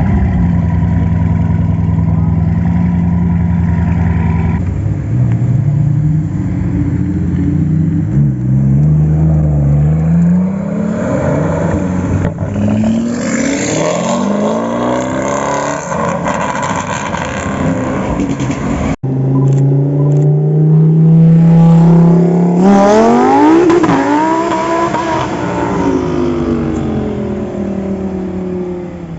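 Supercar engines with loud exhausts revving and accelerating: a steady engine note, then pitch climbing in several rising steps as it pulls through the gears. After a sudden break, another engine holds a steady note, revs up sharply and falls away.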